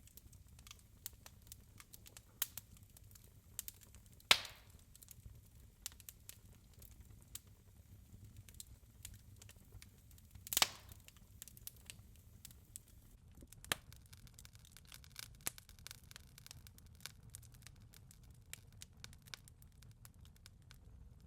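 Wood fire crackling in a fireplace: scattered small crackles, with two louder pops about four seconds in and about ten and a half seconds in, over a low steady rumble.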